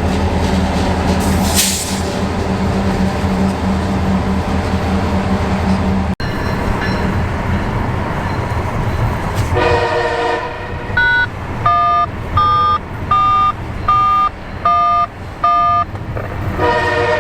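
Steady low engine and road hum, as from a moving car, then a locomotive air horn sounding a multi-note chord about ten seconds in and again near the end. Between the two horn blasts come seven short, evenly spaced electronic beeps.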